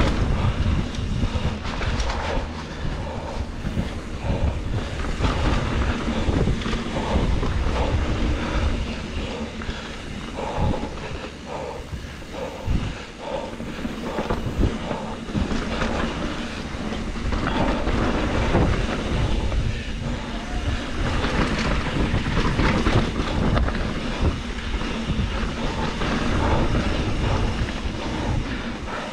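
2021 Trek Slash 7 mountain bike descending a dirt flow trail, recorded close by on a GoPro: a steady rush of tyre noise and wind on the microphone, broken by many rattles and knocks as the bike runs over bumps.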